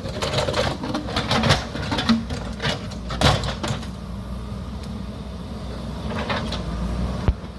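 JCB backhoe loader's diesel engine running steadily under load, with sharp knocks and rattles of the bucket and rock against the rocky hillside, the loudest about three seconds in and a couple more near the end.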